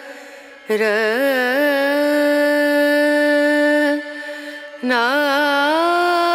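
Music with a singer holding long, drawn-out notes, each opening with a wavering pitch bend before settling. There are two notes, the second starting about five seconds in.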